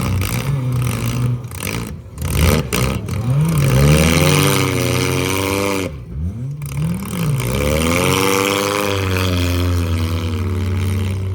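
A vehicle engine revving under throttle, its pitch climbing, holding and dropping back several times, with a brief drop-out about six seconds in.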